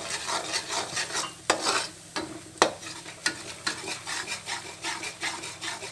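Perforated metal skimmer stirring and scraping gram flour in hot ghee in a metal kadhai, with a few sharp clinks of the spoon against the pan over a light sizzle, as the flour starts to roast.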